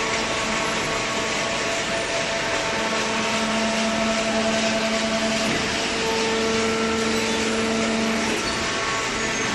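Hydraulic cardboard baler running: its electric motor and hydraulic pump give a steady hum over a loud hiss, and the hum shifts in tone a little past halfway, as the load on the pump changes.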